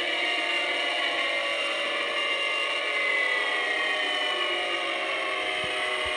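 Outdoor tornado warning sirens sounding together, several steady tones overlapping, with the higher ones sliding slowly lower about halfway through.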